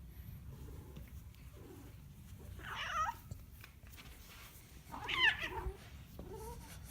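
Domestic cat yowling: two loud drawn-out caterwauling calls about three and five seconds in, followed by fainter meows near the end.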